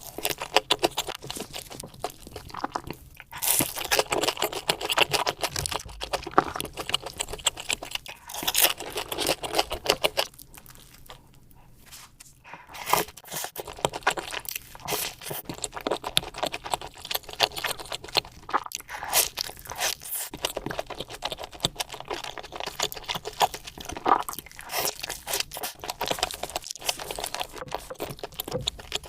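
Close-miked chewing and crunching of food, a dense run of small crackles, with a short lull about eleven seconds in.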